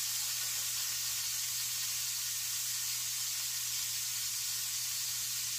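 Butter sizzling in a hot flat pan on the stove, an even, steady hiss, with a low steady hum underneath.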